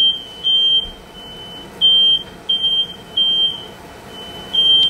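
Smoke alarm sounding, a high-pitched beep repeated about eight times with slightly uneven gaps, set off by smoke from oil frying in the pan.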